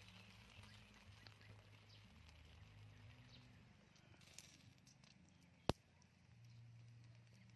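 Quiet eating sounds: faint chewing and mouth clicks over a low hum, with one sharp click about three-quarters of the way in.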